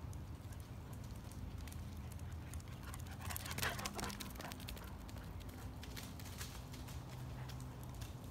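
Light pattering footsteps and crackling over pavement and dry leaves, with a louder cluster of scraping clicks about three and a half seconds in.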